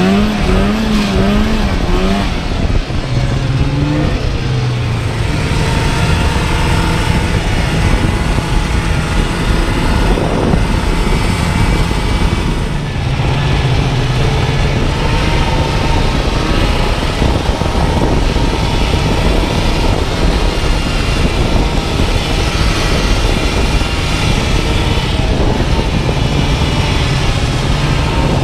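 Polaris Indy snowmobile engine running under way. Its pitch rises and falls quickly in the first couple of seconds, then holds mostly steady at cruising speed, with a rushing noise over it.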